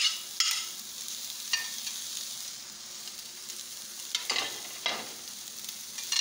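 Machaca (dried shredded beef) with onion and bell pepper frying in a stainless steel skillet: a steady sizzle, with a few short scraping strokes of stirring.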